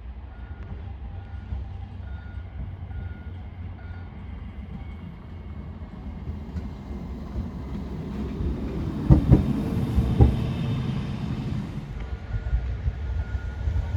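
A Spårväg City tram passing, its running noise swelling over several seconds with two loud clunks about a second apart at its closest. A high beep repeats about twice a second at the start and again near the end.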